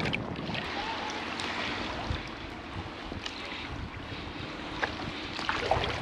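Sea water rushing and sloshing around a home-made shrimp push net as it is pushed through the shallows, a steady wash with a few faint clicks.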